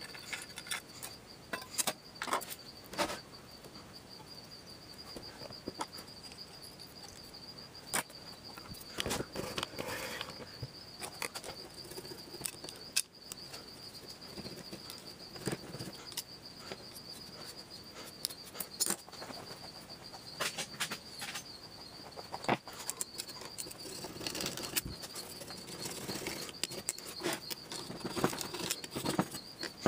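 Small screwdriver scraping and ticking against the cylinder deck of a 1970s Clinton small engine while prying at the old head gasket: irregular light clicks and metal scrapes, over a steady high-pitched whine.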